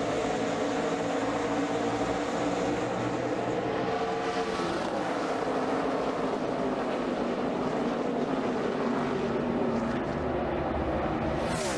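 A pack of NASCAR Busch Series stock cars with V8 engines running at full throttle on the green-flag start. Many engines blend into one dense, steady drone, and its pitch slides as the cars sweep past.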